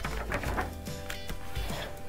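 Soft background music with held notes, with a faint rustle and a few clicks from a picture-book page being turned.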